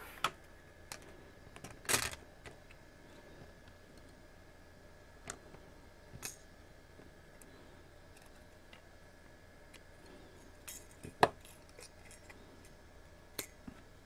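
Scattered clicks and knocks of a remote control's plastic parts being pried apart and handled: the circuit board, LCD frame and rubber keypad coming out of the casing and being set down on a silicone mat. The sharpest click comes about 11 seconds in, with a short cluster of knocks about 2 seconds in.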